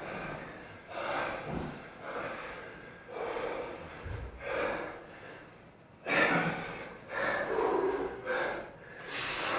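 Heavy breathing from hard physical exertion: a string of loud breaths and gasps about once a second, growing louder from about six seconds in.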